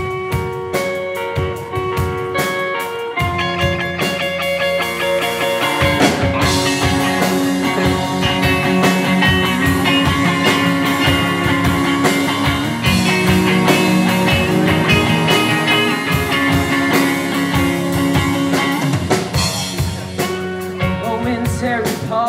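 Rock band playing an instrumental passage: picked guitar notes lead at first, and the full band with drum kit comes in about six seconds in.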